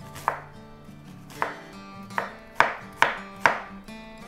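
Chef's knife dicing an onion on a wooden cutting board: about six sharp knocks of the blade on the board at an uneven pace, the loudest in the second half.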